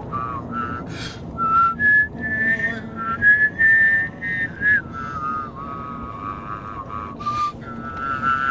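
A person whistling a tune in short melodic phrases, inside a moving car, with a steady hum of road and engine noise beneath.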